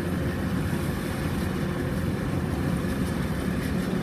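Kubota DC-105X rice combine harvester running steadily as it moves along the field edge, its diesel engine giving an even, unbroken hum.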